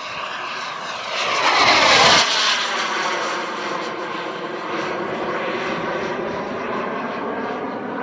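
KingTech 260 turbine of a giant Tomahawk F-86 Sabre RC jet flying past: the whine peaks about two seconds in and drops sharply in pitch as it goes by, then carries on as a steady turbine whine.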